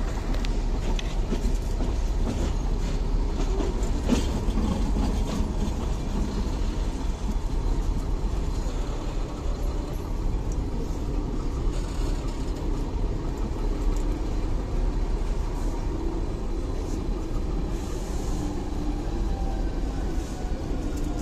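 Ooty toy train of the Nilgiri Mountain Railway running: a steady, continuous rumble and rattle of the carriages on the track.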